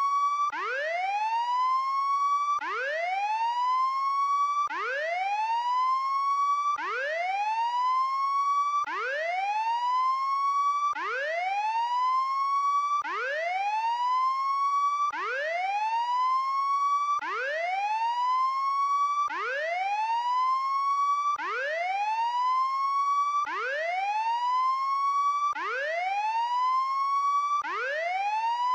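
Prison escape alarm: a buzzy electronic whooping siren. Each whoop sweeps up in pitch over about a second, holds its top note for about another second, then breaks off and starts again, repeating about every two seconds.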